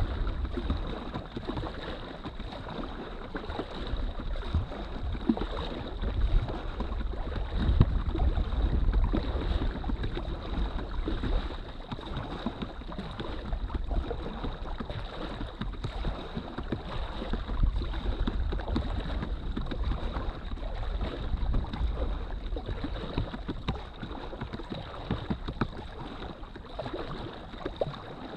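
Water splashing and lapping around an inflatable drop-stitch kayak as it is paddled across a lake, with irregular small splashes and wind rumbling on the microphone.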